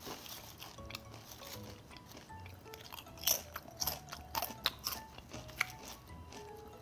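Lay's Classic potato chips crunching as they are bitten and chewed: irregular sharp crunches, thickest from about three seconds in.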